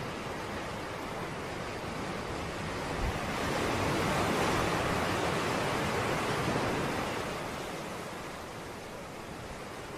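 Ocean surf on a beach: a wave builds and breaks with a rushing wash that swells about three seconds in and slowly fades away.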